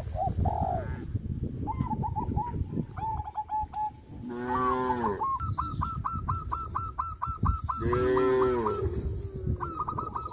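Cows mooing twice, once about four seconds in and again about eight seconds in, over a run of short repeated bird chirps and a steady low rumble.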